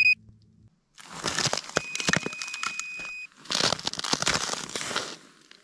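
Crunching footsteps on crusty snow and ice in two stretches, with a steady high electronic beep from the fish finder lasting about a second and a half, starting about two seconds in.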